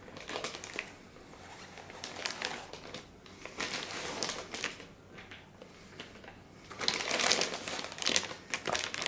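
Plastic packaging around a car stereo head unit crinkling and rustling in irregular bursts with small clicks as it is handled, loudest about seven seconds in.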